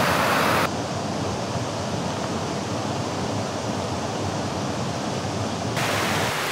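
Small woodland stream rushing steadily over rocks, cut off sharply under a second in. A lower, rougher rumble of wind on the microphone follows, and the rushing water returns near the end.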